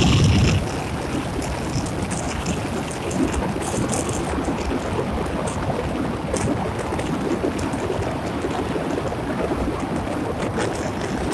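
Steady rushing wind and road noise of a car driving along a road, louder in the first half second and then even.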